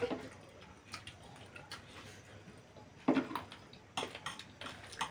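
Forks clicking against plates in scattered light taps while people eat, about seven over a few seconds, the strongest about three seconds in.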